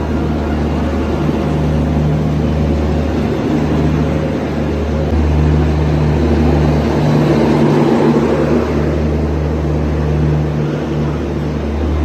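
A long Indian Railways passenger train's coaches running past along the platform: a loud, steady rumble of wheels on rails that swells a little a few seconds past the middle.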